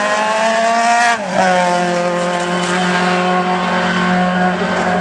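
Single-seater racing car engine at full throttle, rising in revs, with a sharp upshift about a second in, then holding high revs in the next gear.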